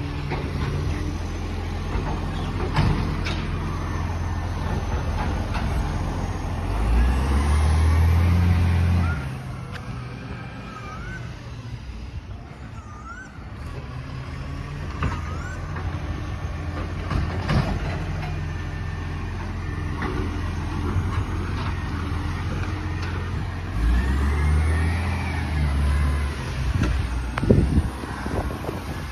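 Recycling garbage truck's diesel engine running. Twice it revs up and holds for a couple of seconds, with a few sharp knocks in between.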